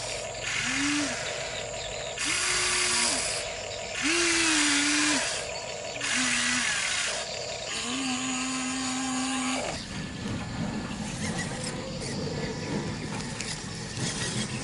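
Electric motors of a Huina RC excavator whining in repeated bursts of about a second each as the boom, arm and bucket move, the pitch rising and falling with each motion. For the last few seconds a lower, rougher motor sound takes over.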